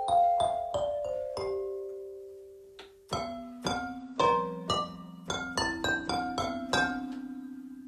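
Piano notes played on a keyboard: a quick run of single notes, one note left to ring and fade for about two seconds, then chords over low held bass notes from about three seconds in.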